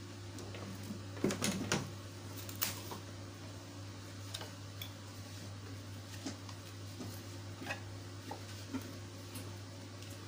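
Manual hot foil stamping press being worked: a cluster of metal clacks and knocks from its lever and sliding bed about a second in, another knock shortly after, then scattered lighter clicks, over a steady low hum.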